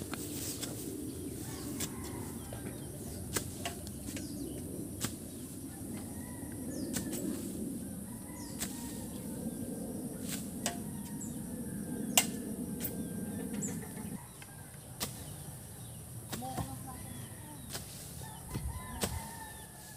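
Farmyard chickens, with sharp knocks at irregular intervals every second or two, the loudest about twelve seconds in. A low rustling noise drops away about fourteen seconds in.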